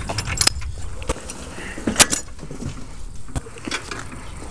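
Honda Odyssey FL250's two-stroke single-cylinder engine idling as a low, steady rumble, with a few sharp clicks over it, the loudest about two seconds in.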